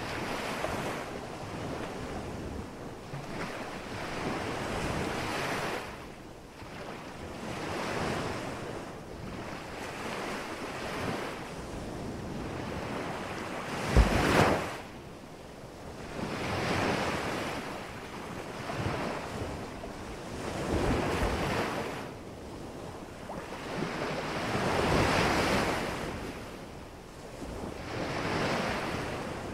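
Ocean surf washing on a sandy beach, swelling and fading every few seconds, with wind buffeting the microphone. A brief loud thump about halfway through.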